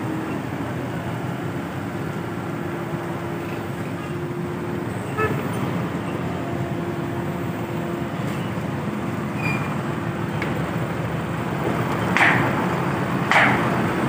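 Construction-site machinery and road traffic running steadily, with a steady low hum through the first half. Near the end, two sharp hammer strikes land about a second apart.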